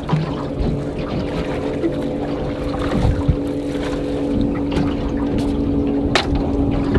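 Steady motor hum on the water, with low wind and water noise; a sharp knock about six seconds in.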